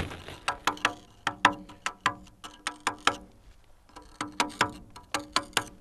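Hand chisel struck with a hammer, cutting into expanded obsidian (a porous volcanic-glass stone) while carving the face of a stone bear: quick ringing taps about three or four a second, with a short pause a little past halfway.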